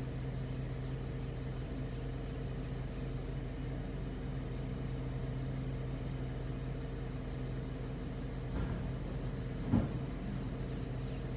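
A vehicle engine idling with a steady low hum, and a couple of faint knocks near the end.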